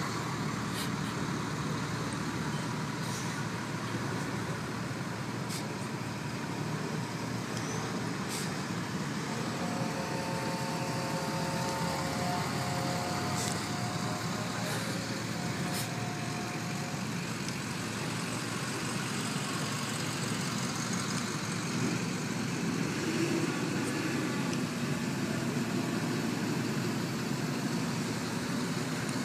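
Steady rumble of a line of tow trucks and road traffic, with a steady pitched tone that holds for several seconds about a third of the way in.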